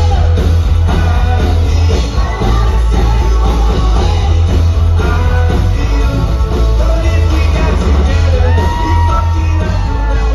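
Live rock band playing through a venue's PA: electric guitar, drums and a heavy, booming bass, with the singer's voice over it and a long held note near the end. The sound is picked up in a large hall from among the crowd.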